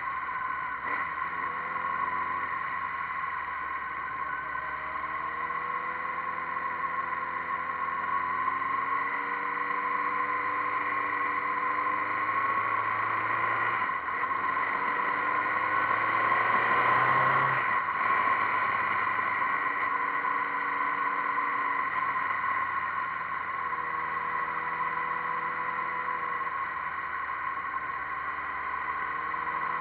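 Motorcycle engine running under way, its pitch climbing slowly as it accelerates, with a break and a change about halfway through, over steady wind and road noise. The sound swells to its loudest a little past the middle.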